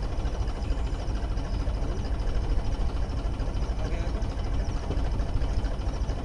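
Farm tractor's diesel engine running steadily at an even speed, rigged to drive a water pump.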